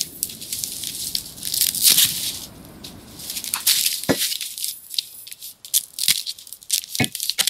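Dry kindling crackling and rustling as it is lit and fed into a clay wood-burning stove, with a few sharp knocks from sticks and pans.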